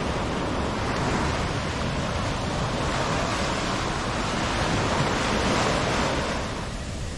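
Sea surf washing up a sandy beach. The wash swells and then fades out near the end, with wind rumbling on the microphone.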